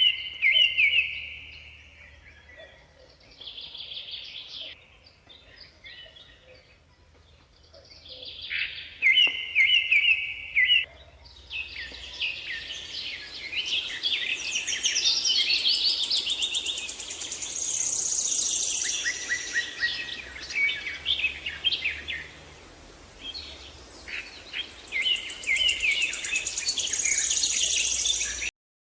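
Several birds chirping and calling, a few scattered calls at first, then a dense, overlapping chorus of chirps from about twelve seconds in that cuts off suddenly near the end.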